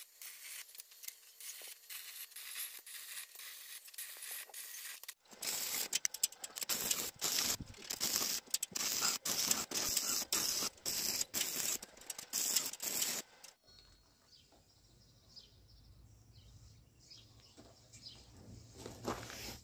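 Stick arc welding on steel bars: the arc crackles and sputters steadily, fainter at first and louder from about five seconds in, then stops about fourteen seconds in, leaving a low hum and a few light handling noises.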